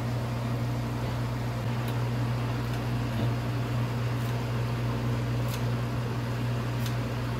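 Several faint snips of kitchen scissors cutting fresh basil leaves, spaced about a second apart, over a steady low mechanical hum like a running fan.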